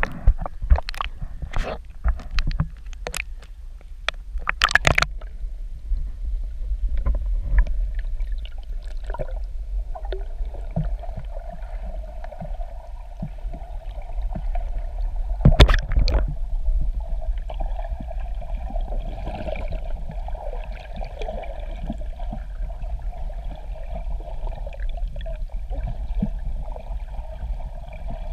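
Sea water sloshing and gurgling around a swimmer snorkeling in the shallows, over a steady low rumble. There are several sharp clicks in the first five seconds and another loud one about 15 seconds in.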